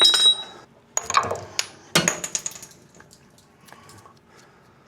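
Metal clinks and knocks of steel tools being handled: a ringing clink at the start, then two sharper knocks about a second and two seconds in, followed by quieter small handling sounds. The tools are most likely ball joint press parts and adapters being set up on a control arm.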